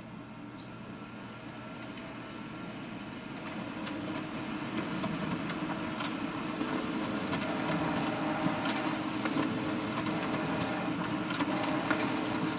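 Office photocopier running: a steady mechanical hum with scattered clicks, growing gradually louder over the first several seconds.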